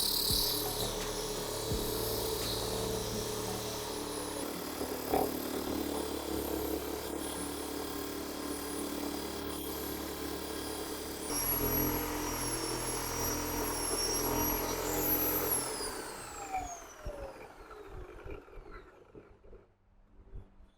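An electric power tool's motor running steadily with a high whine, then switched off and winding down, its whine falling in pitch and fading over the last few seconds.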